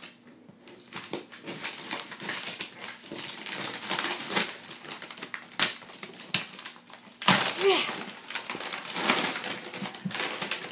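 A parcel's packaging being handled and pulled at while being opened: irregular crinkling and rustling of paper or plastic wrapping, loudest about seven seconds in.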